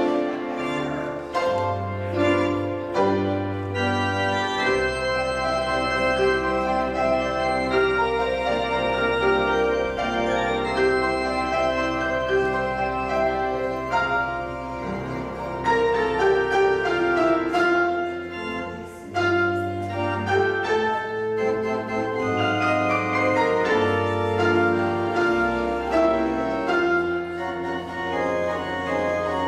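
Organ music: sustained chords over long held bass notes, the bass holding one note for much of the middle of the passage.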